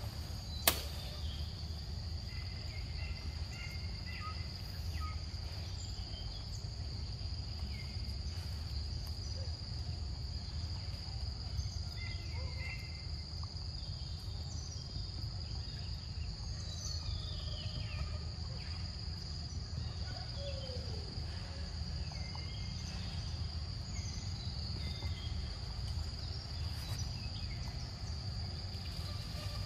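Insects trilling in one steady high tone over a low background rumble, with faint scattered chirps. A single sharp click comes just under a second in.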